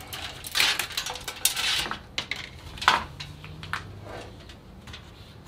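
Steel micro ATX computer case being flipped over and set down: metal rattling and clattering for about two seconds, then a few separate sharp knocks.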